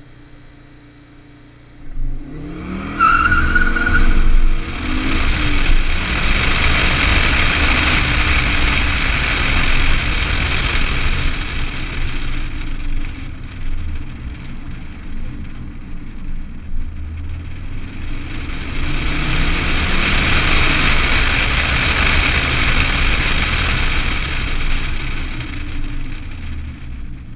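Ford Focus ST 2.5's turbocharged five-cylinder engine, with a Milltek exhaust, launching hard about two seconds in on launch control, with a brief tyre squeal. It accelerates hard with heavy wind rush over the outside microphone, eases off around the middle, accelerates hard again, and eases off near the end.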